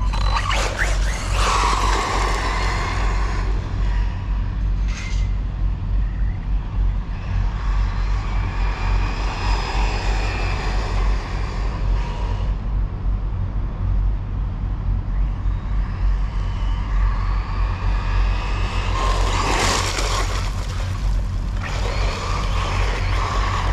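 Team Corally Syncro4 RC buggy's electric motor and drivetrain on a 17-tooth pinion whining at high speed as it makes three fast passes: near the start, in the middle and near the end. A steady low rumble runs underneath, with a short sharp knock about five seconds in.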